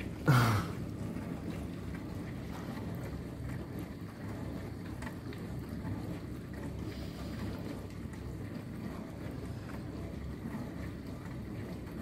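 Miele G977 Plus dishwasher running in its wash/rinse phase on the Economy programme, a steady low hum. About a third of a second in, a brief loud sound sweeps down in pitch.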